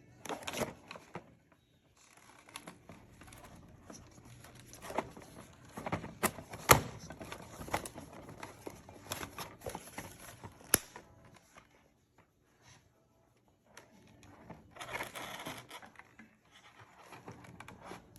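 Close handling noise of hair and a hair-styling tool: irregular rustling and scraping with many sharp clicks and taps, the loudest two a little under 7 s and about 11 s in.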